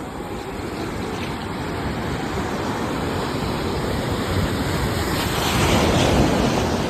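Sea waves washing in, a steady rushing surf that swells louder about six seconds in and then eases off.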